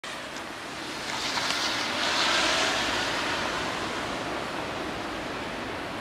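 Blizzard wind blowing steadily, with a gust swelling about a second in and easing off a couple of seconds later.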